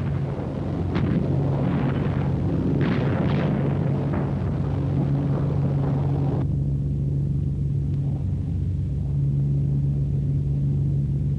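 Bomber's engines droning steadily, heard from inside the aircraft, with a constant low hum. Over it a crackly rushing noise runs until it cuts off abruptly about six seconds in, leaving the drone alone.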